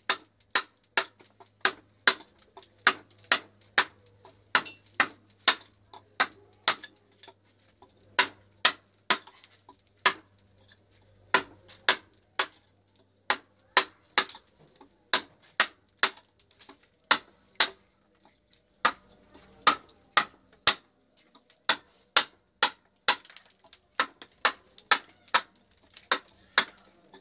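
Mallet striking a wood-carving chisel as it cuts into a log, sharp knocks at a steady pace of about two blows a second, with a brief pause about two-thirds of the way through.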